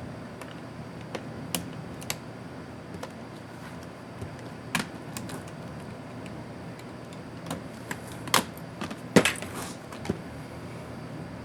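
Irregular clicks and taps of laptop parts and tools being handled during a disassembly, over a steady background hiss; the loudest knocks come about eight and nine seconds in.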